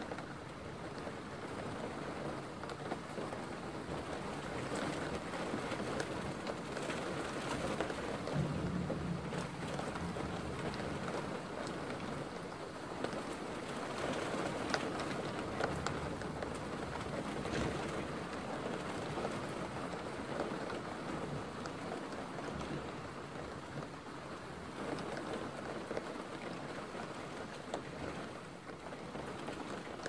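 Steady rain falling, a dense patter of drops, with a low rumble for a couple of seconds about eight seconds in.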